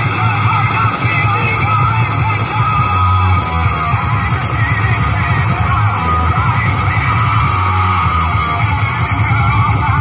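Loud music with a heavy, pulsing bass line and a singing voice, played through stacked sound-system speakers.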